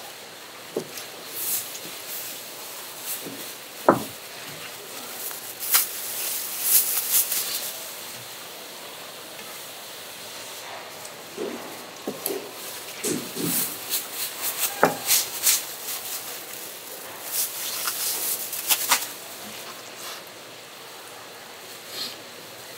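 Plastic bags rustling and crinkling in short spells as seafood is bagged, with handling clicks and a sharp knock about four seconds in.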